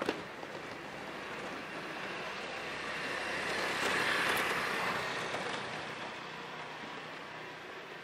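A road vehicle passing close by: its noise grows to its loudest about four seconds in, then fades away. A short click comes at the very start.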